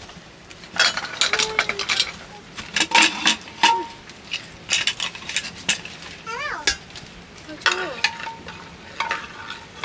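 Dishes and utensils clinking and scraping repeatedly during a meal, with a few short vocal sounds in between.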